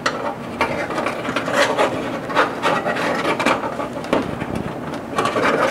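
Irregular scraping and rubbing as a thin metal tool is worked against the felt hood insulation liner and into a push-pin hole, in a run of uneven strokes.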